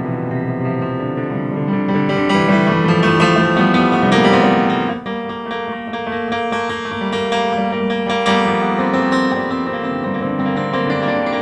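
Grand piano being played: a busy passage of many notes that grows louder, breaks off sharply about five seconds in, then goes on more softly.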